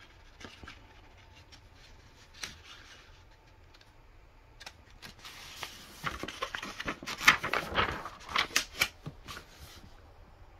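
Pages of a paper instruction manual being handled and turned: a few faint paper touches at first, then a few seconds of rustling and crackling about halfway through.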